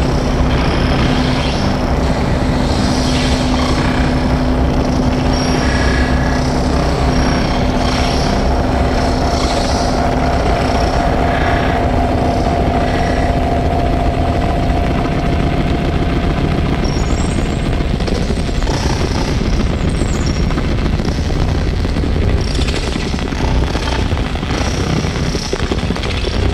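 Experimental noise-drone music from electronics and an effects-processed electric guitar: a loud, dense, rumbling wall of noise with two held tones, the lower one dropping out about halfway through and the higher one a few seconds later.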